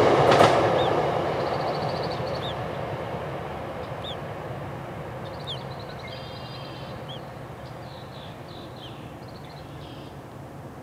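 A passing train's rumble dying away over several seconds, with scattered short bird chirps over it.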